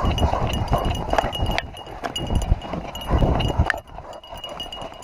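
A dog running on snow: its paws strike the snow in a steady gallop rhythm while the tags on its collar jingle, heard through a camera strapped to its back. The running sound drops off a little before the end.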